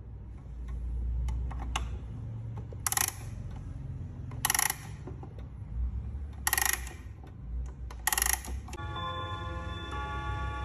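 Antique clock's mechanism: faint ticks and four short rasping bursts spaced a second and a half to two seconds apart. Near the end the clock's chime begins, several notes ringing and overlapping as new ones strike.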